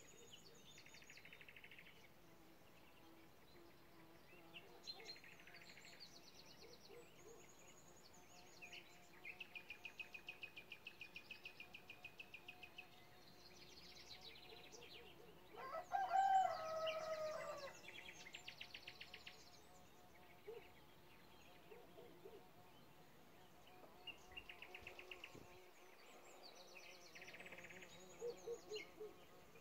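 Small songbirds singing in rapid, buzzy trills, phrase after phrase, with a rooster crowing once about halfway through, the loudest sound.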